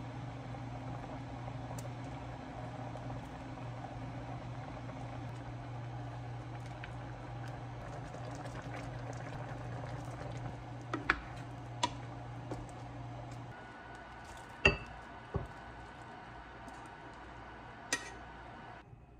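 A pot of kimchi sujebi simmering and bubbling over a steady low hum that stops about two-thirds of the way through. Several sharp knocks of utensils and cookware follow, the loudest about three-quarters in, with another as the soup is poured from the pot into a ceramic bowl near the end.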